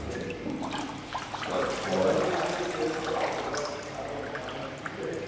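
Water pouring and dripping off a submersible's metal frame as it is lifted out of a test tank, splashing back into the water; the pouring is heaviest about two seconds in.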